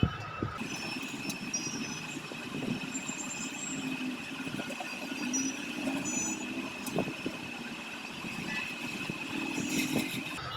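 Steady background noise with a continuous high-pitched whine, a faint low hum and a few soft clicks.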